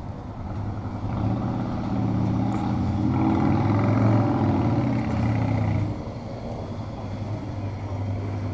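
A motor vehicle engine running at a steady pitch. It grows louder over the first few seconds, then drops off suddenly about six seconds in.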